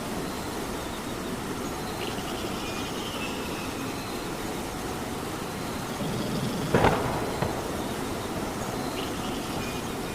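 Steady rainfall. About seven seconds in there is one sudden sharp crack, with a smaller one just after it.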